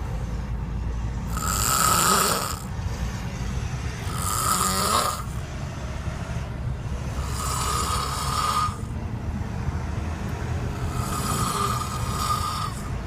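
A man snoring: four long snores about three seconds apart, each about a second long and carrying a steady high tone, over a continuous low rumble.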